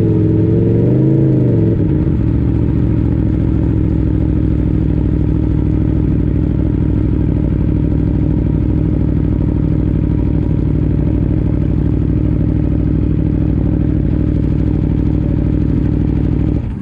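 Sport motorcycle engine running with a steady, unchanging note, after the revs waver up and down a little in the first couple of seconds.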